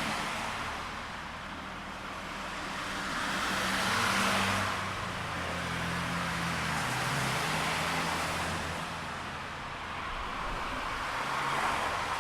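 City street traffic: a steady wash of road noise and low engine hum, with vehicles passing that swell louder about four seconds in and again near the end.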